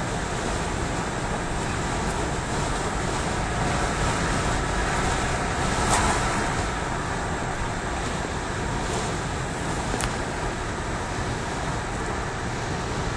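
Engine and road noise inside a Nissan Pathfinder's cabin at a steady highway speed. The noise swells briefly about six seconds in. Near the end the engine revs drop from close to 4,000 rpm to under 3,000 while road speed holds, which the owner calls the rpms going crazy.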